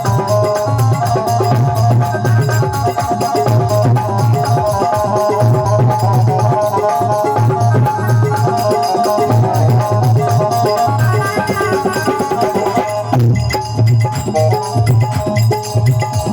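Indian devotional folk music: a steady hand-drum beat under a melodic instrumental line. The arrangement shifts briefly about three-quarters of the way through.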